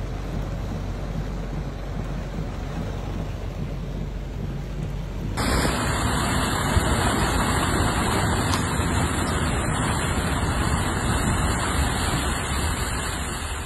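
Muffled, rumbling noise heard from inside a car beside rushing muddy floodwater. About five seconds in it cuts abruptly to a louder, steady hiss of heavy rain and floodwater running across a street.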